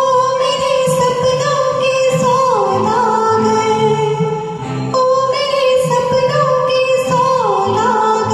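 Music: a karaoke performance of a Hindi film song, a high held melody line with small ornamental turns over a backing track, the same phrase starting over about five seconds in.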